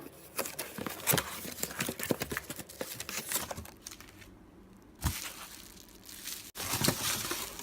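Close handling noise: crinkling and rustling with scattered light clicks and taps, as of plastic and small objects being handled.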